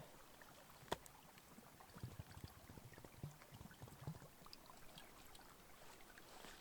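Near silence: faint outdoor background with one sharp click about a second in and a few faint scattered ticks.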